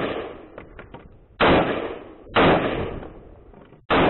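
Springfield Saint AR-15 rifle in 5.56 firing three semi-automatic shots, each a sharp report dying away over about a second, the second and third about a second and a second and a half apart. The tail of a shot fired just before is still fading at the start.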